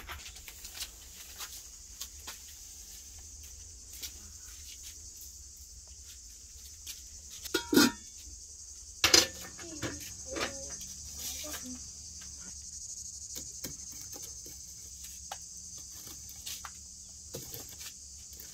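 Insects chirring steadily in the background. Two loud, sharp metal clanks about eight and nine seconds in, followed by a few lighter knocks, as the brick stove's metal firebox door and fittings are handled.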